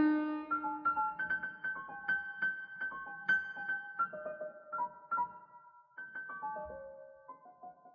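Solo piano playing sparse, birdsong-like figures in the upper register. Single struck notes and quick repeated notes each ring briefly, spaced irregularly, and grow quieter and fewer toward the end.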